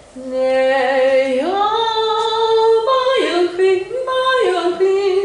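A woman singing a melody in long held notes, the pitch stepping up about a second and a half in, then moving through several notes before a breath near the end.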